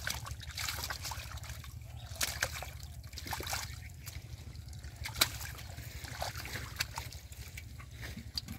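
Hands splashing and groping through shallow muddy water, with scattered small splashes and sloshes and one sharper splash about five seconds in.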